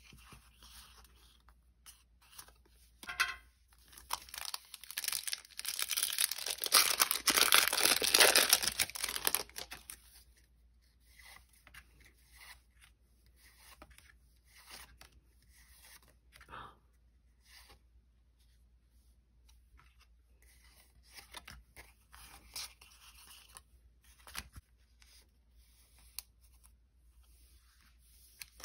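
A foil Pokémon booster pack wrapper being torn open, a loud stretch of tearing and crinkling lasting several seconds a few seconds in, followed by scattered faint rustles and clicks of the cards being handled.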